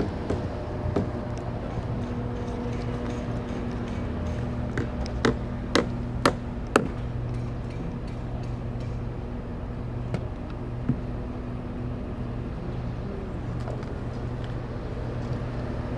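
A steady low mechanical hum with a few sharp knocks over it, four coming in quick succession about two a second around the middle.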